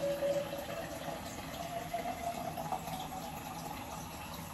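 Tap water running into a container from a bathroom sink faucet, the note of the filling rising steadily as the container fills.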